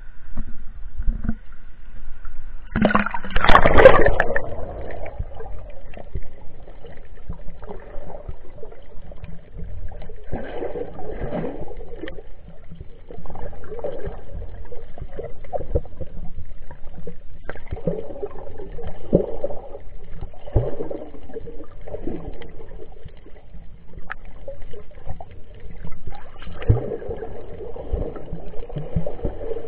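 Shallow sea water sloshing and gurgling around a camera held at and under the surface, with a loud splash about three seconds in. After it comes a muffled underwater wash of water with scattered knocks.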